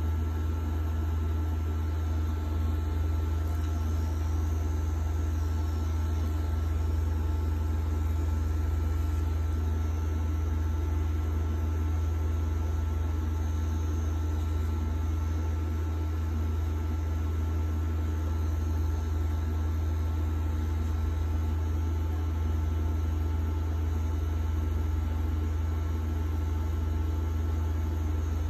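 Pen-style rotary tattoo machine running with a steady, unbroken low hum.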